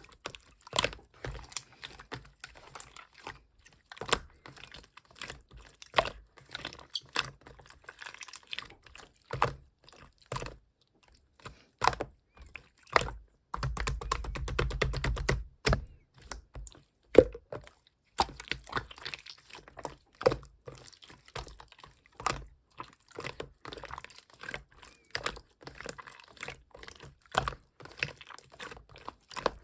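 Black marbled slime being squeezed, pressed and folded by hand, giving irregular sharp clicks and snaps, with a longer, denser run of crackling about halfway through.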